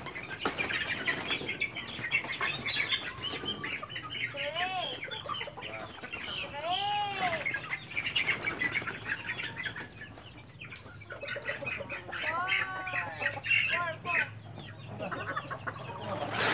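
Young Black Australorp chickens clucking and chirping busily while they are handled, with several loud rise-and-fall squawks and bursts of wing flapping. A quieter lull comes about two-thirds of the way through.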